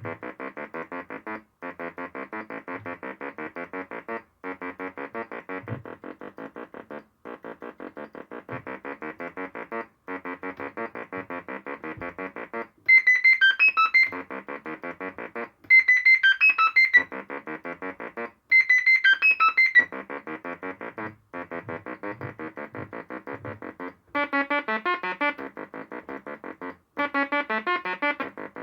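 Homemade step sequencer driving a DIY synthesizer oscillator, playing a rapid stream of short electronic notes in a repeating pattern, phrase after phrase with brief gaps between them. About halfway through the pattern jumps higher and louder for a few phrases, and near the end it turns brighter.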